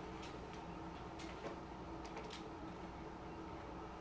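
Faint, irregular light clicks and ticks, about five in four seconds, over a low steady room hum.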